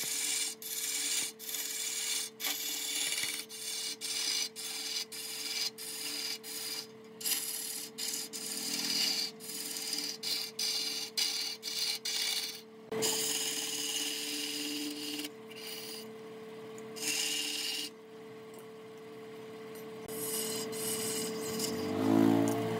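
Wood being scraped by hand in quick back-and-forth strokes, about two a second, then in slower, longer strokes from about halfway through, over a steady hum. Near the end a short pitched whine is the loudest sound.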